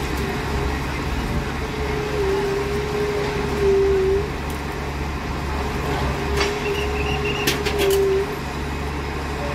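Heavy diesel track machinery running steadily, with a whine that comes in twice for about two seconds each. A few sharp metallic clanks come near the end.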